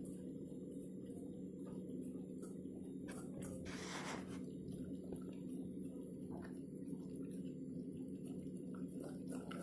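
A Labrador eating cooked rice from a steel bowl: faint scattered clicks and smacks of chewing and of the muzzle working in the bowl, with a brief noisy burst about four seconds in, over a steady low hum.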